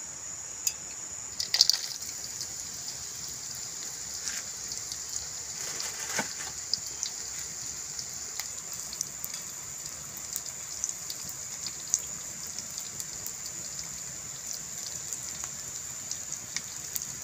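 Small dried anchovies tipped into hot oil in a wok, a loud burst of sizzle about a second and a half in, then frying steadily with many sharp crackles and pops.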